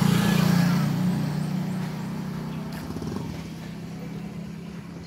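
A motor vehicle's engine passing on the road, a steady hum that is loudest at the start and fades away over the next few seconds.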